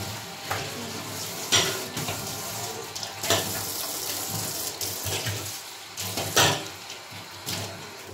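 Water running from a kitchen tap into a stainless steel sink while the basin is rinsed with a cloth, with several brief louder splashes.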